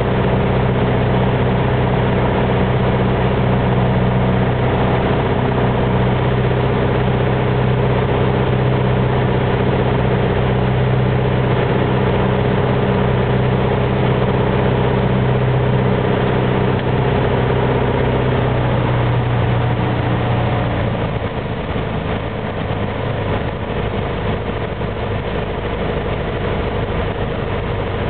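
Aircraft engines running with a steady drone during a landing approach. About twenty seconds in, the steady engine tones fade and the sound drops a little in level.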